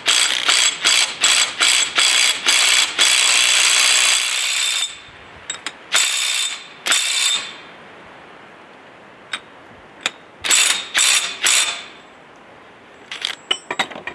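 A hand-worked ratchet clicking in quick short strokes, about three a second. Around the middle it runs on in one longer stretch of steady clicking, then comes back as a few spaced strokes with pauses, and ends in a few light clicks.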